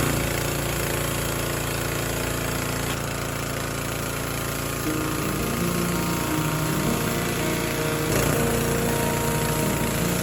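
A gas pressure washer with a Honda engine running steadily, with the hiss of the water jet spraying deck railing.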